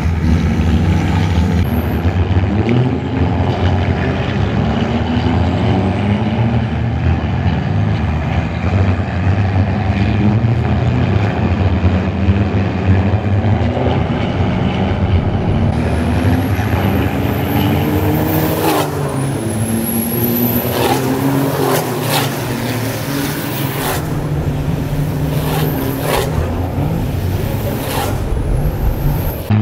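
Racing trucks' turbodiesel engines running hard as several trucks race past on a wet track, their pitch rising and falling with the revs. In the second half come several short, sharp bursts and a high rising and falling whistle.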